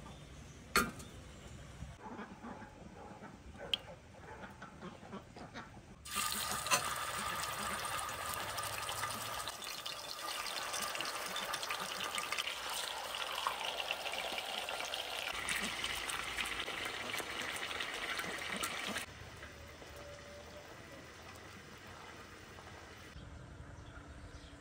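Chicken legs sizzling and crackling in hot oil in a cast-iron pot. The sizzle starts suddenly about six seconds in, after a couple of sharp knocks, and cuts off about nineteen seconds in, leaving quiet outdoor background.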